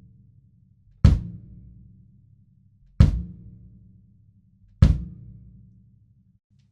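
An 18-inch Tama Star Walnut kick drum with an Evans EQ3 batter head, damped by an Evans Kick Pillow inside, is struck alone once every two seconds or so, as in a slow sound check. Each stroke is a sharp beater click and a low boom that dies away before the next. There are three strokes, and a fourth lands right at the end.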